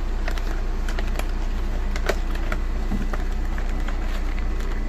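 Packaging being handled and opened, giving a few sharp clicks and crinkles over a steady low hum.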